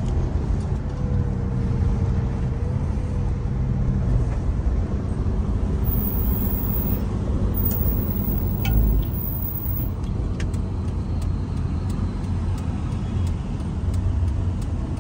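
Steady engine and road noise of a car being driven, heard from inside the cabin, with a low even hum.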